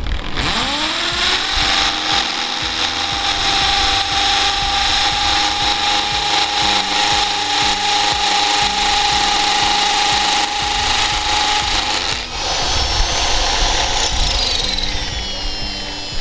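Bosch GSB 550 550 W hammer drill in hammer mode, boring into a masonry wall. The motor spins up at the start and runs at a steady pitch through the drilling, eases briefly about twelve seconds in, then winds down in pitch near the end.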